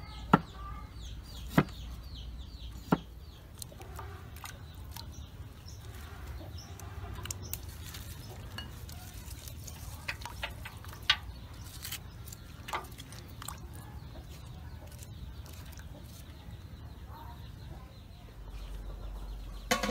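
Chickens clucking in the background, with a few sharp knocks: three about a second and a half apart in the first three seconds, and more around the middle.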